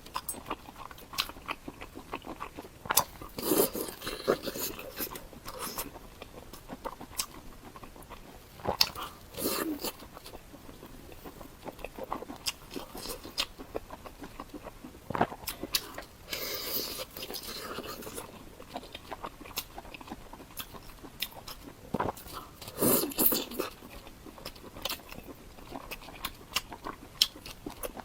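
Close-miked eating: a person biting and chewing food, with crunchy bites and wet mouth clicks, in several louder bursts of chewing between quieter stretches.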